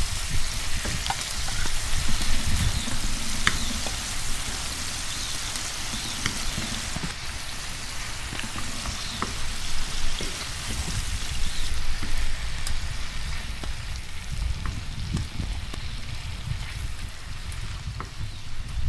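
Vegetables sizzling in a frying pan over a wood fire, a steady hiss with scattered pops. A wooden spatula stirs them at first. A low rumble runs underneath.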